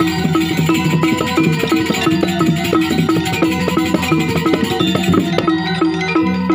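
Balinese gamelan playing: bronze metallophones ringing in quick, dense, overlapping strikes over held low notes, with drum strokes.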